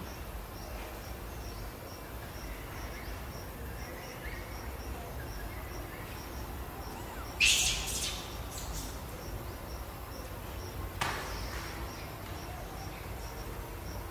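Forest ambience: a high insect-like chirp repeating a few times a second, steady throughout. A loud, brief, high-pitched sound cuts in about seven and a half seconds in, followed by a few weaker ones, and a shorter sharp sound comes near eleven seconds.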